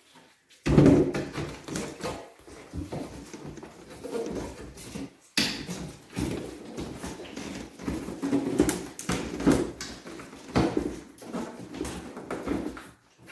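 Irregular thumps, knocks and rustling as items and padding are handled and packed into a hard-shell double bass travel case, with a sharp bump about half a second in.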